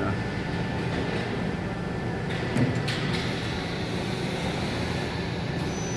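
Steady background hum of an industrial shop floor, with a few faint clicks between two and three seconds in.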